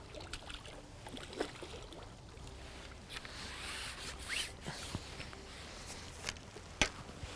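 A hooked common carp splashing lightly at the surface as it is drawn over a landing net, then the net lifted clear with water running out of its mesh about three to four seconds in. Scattered light clicks and knocks from the net handle and pole run through it.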